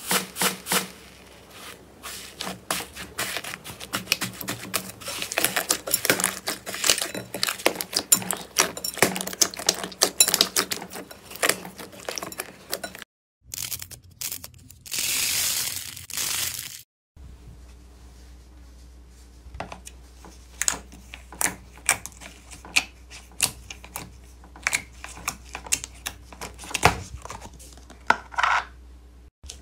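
Slime being squeezed and poked by hand: dense crackling and popping clicks, then after a cut a few seconds of smoother rushing noise, then sparser pops and clicks over a low steady hum.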